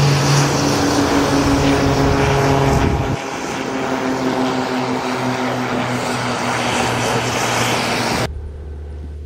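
Twin-engine piston propeller plane taking off and climbing out, its engines and propellers running at high power with a steady pitched drone. The sound drops suddenly about three seconds in, carries on more quietly, then cuts about eight seconds in to a low steady rumble.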